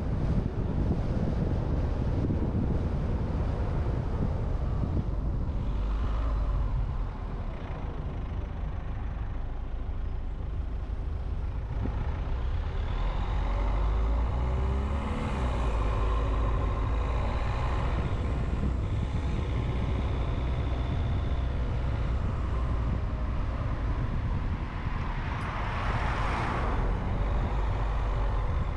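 Car driving through city traffic: a steady low rumble of engine and road noise, with other vehicles heard around it and a brief louder rush of noise near the end.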